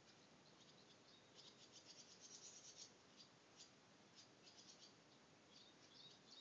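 Faint, distant bird chirping: irregular bursts of quick, high-pitched notes over a quiet rural background hiss.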